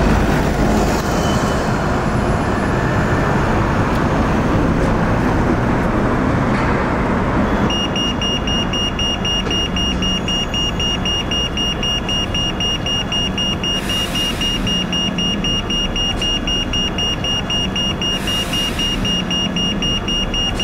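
City street traffic noise, with a double-decker bus passing close by at the start. About eight seconds in, a pedestrian crossing signal starts beeping rapidly at a high pitch and keeps going.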